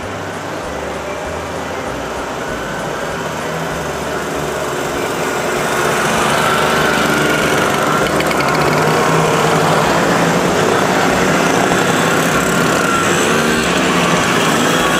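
Many small 50–80 cc two-stroke moped engines running as a column of vintage mopeds rides up and past, getting louder over the first six seconds or so, then holding steady.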